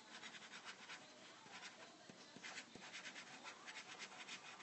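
Faint scratching of a pen on sketchbook paper: many short, quick strokes in an uneven rhythm, several a second.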